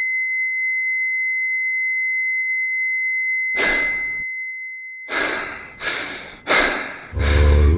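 A steady high-pitched electronic tone holds for about five seconds and cuts off. Over it and after it come four or five loud, heavy gasping breaths. Music with a deep bass comes in near the end.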